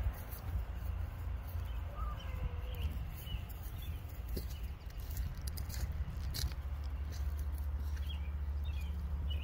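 Low rumble of wind and handling noise on a phone microphone while walking, with scattered rustling clicks and a few faint bird chirps.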